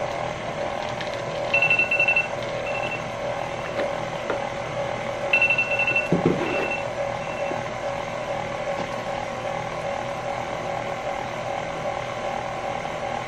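KitchenAid stand mixer running steadily as it beats buttercream frosting. Over it a kitchen timer beeps in two runs of high beeps, about two and five seconds in, signalling that the cakes' baking time is up.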